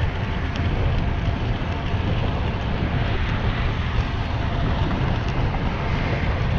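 Steady wind rumble on a GoPro Hero 7 Silver's microphone from riding a bicycle at about 16 mph, with the hiss of the tyres rolling on a paved path.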